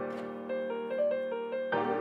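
Background piano music: held chords under a simple melody of notes that change every fraction of a second.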